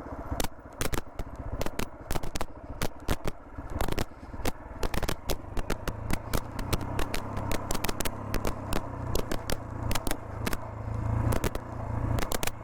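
Motorcycle rolling down a rough, steep dirt trail: a low engine rumble under many irregular clicks and knocks from stones under the tyres and the bike rattling over the bumps.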